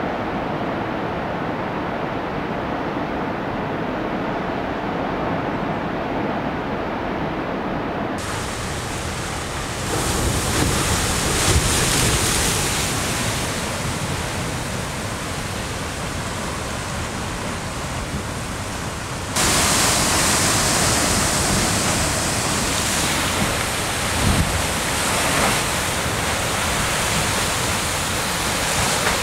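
Ocean surf on a rocky shore. At first a dull, muffled wash of waves; about eight seconds in it changes suddenly to a brighter, nearer sound of waves surging and splashing among basalt rocks, with swells of louder crashing, and it grows louder again just past the halfway point.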